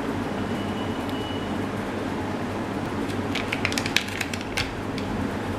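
A short cluster of small clicks and crackles of handling, from about three and a half to four and a half seconds in, over a steady hum and hiss of room noise.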